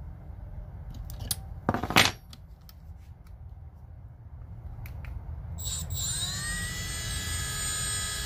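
A few handling clicks and a sharp clack about two seconds in, then a Milwaukee M12 Fuel cordless right-angle die grinder spins up near the end with a rising whine that settles into a steady high whine, running free with an empty collet.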